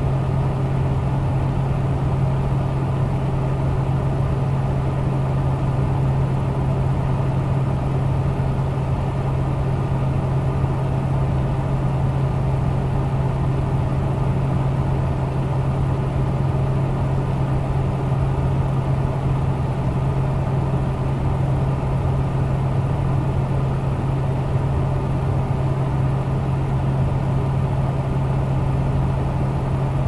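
Computer fan running steadily: a strong low hum over an even rushing noise, with no change in speed.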